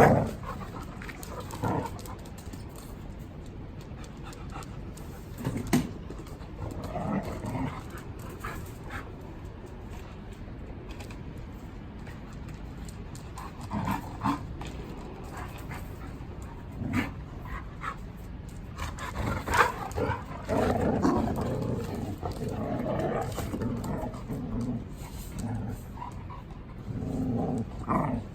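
Large dogs making vocal sounds, with growls and panting among them and short clicks and knocks scattered through. It grows busier about two-thirds of the way in.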